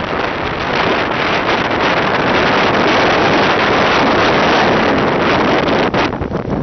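Strong storm wind blowing hard and buffeting the microphone: a loud, rushing noise that swells through the middle and eases a little near the end.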